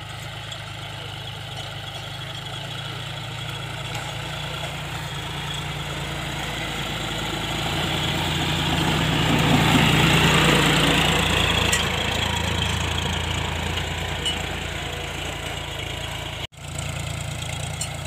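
John Deere 5045 tractor's three-cylinder diesel engine running steadily under load while pulling a tine cultivator through the soil. It grows louder as the tractor passes close by about halfway through, then fades again. The sound drops out for an instant near the end.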